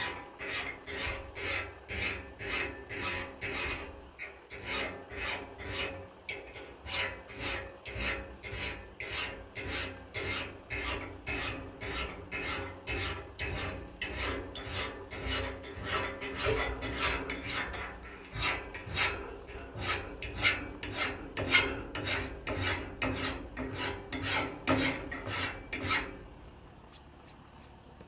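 Hand metal file being stroked along the steel edge of a double-bit axe, sharpening it in steady rasping strokes about two a second. The filing stops near the end.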